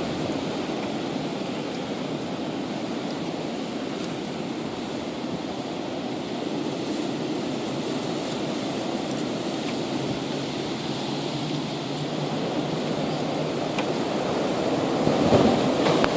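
High winds blowing in a steady rush, growing louder near the end.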